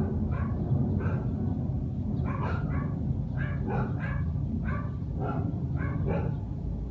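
Dogs barking in an uproar, short barks over and over at about two a second, over a steady low rumble.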